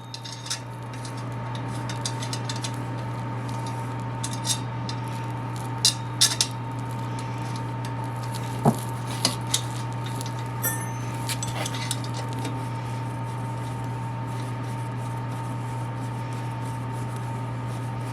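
A few light metallic clinks of bolts and tools as skid-plate bolts are started by hand, over a steady low hum.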